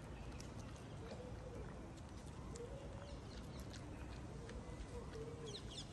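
Cat chewing dry kibble: irregular small crisp crunching clicks. Three short low calls sound in the background, and a quick cluster of small bird chirps comes near the end.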